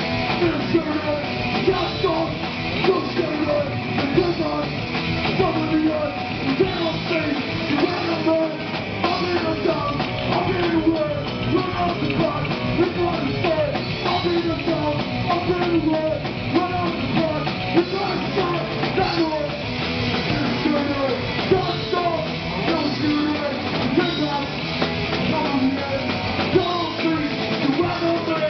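Rock band playing loud and live: drum kit, electric guitar and bass, with a singer's vocals through the microphone.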